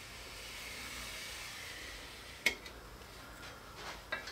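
Pencil drawn along paper for about two seconds, a light steady scratchy hiss as a long center line is run down a paper-faced hardboard template, followed by one sharp click and a few light taps near the end.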